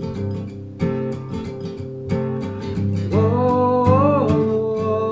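Background song on acoustic guitar: a few strummed chords, then a long held melody line that comes in about three seconds in.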